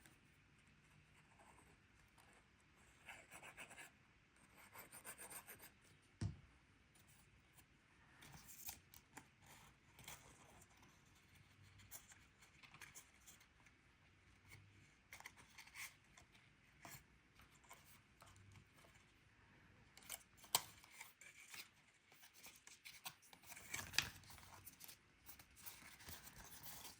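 Faint, intermittent rustling and rubbing of cardstock being folded and creased by hand, with a few sharp taps along the way.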